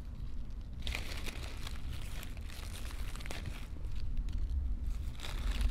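Wild garlic leaves being picked by hand among dry leaf litter: scattered rustling with small crackles and snaps, over a low steady rumble.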